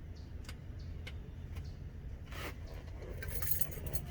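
A bunch of keys jangling, with scattered light metallic clicks and a brief rustle near the middle, over a steady low hum.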